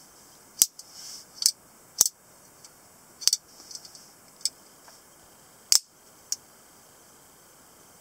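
Lever-lock stiletto switchblade worked by hand: a series of sharp metallic clicks from its lever and locking mechanism, spread unevenly, with a short rasp about a second in. The loudest snap comes about six seconds in, as the spring-driven blade flicks open and locks.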